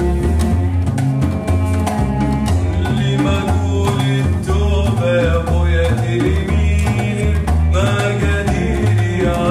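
Ensemble music: a double bass plays a bass line of short, stepping notes under steady percussion strokes, with a melody of sliding notes above.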